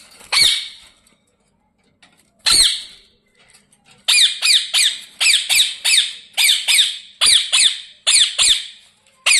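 Ringneck parakeet screeching: loud, high calls that slide downward in pitch. Two calls come a couple of seconds apart, then a fast run of about a dozen at two or three a second.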